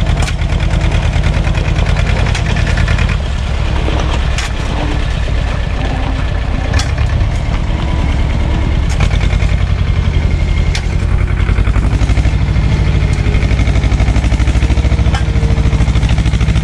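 Tractor engine running steadily close by, with a fast even firing beat, as a trailer-load of stones is hauled along a rough track. A few sharp knocks and rattles come through over it.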